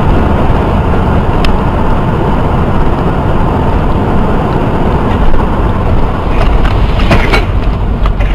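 Loud, steady road and engine noise of a moving car, with a sharp click about a second and a half in and a few more clicks around seven seconds in.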